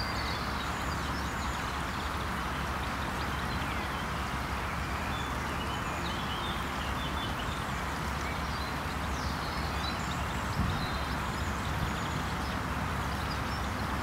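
Steady rush of a small forest waterfall and stream, with scattered bird chirps over it.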